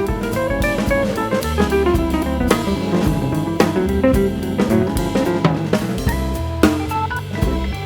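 Background music: a drum kit beat with regular strokes under a melody of changing notes.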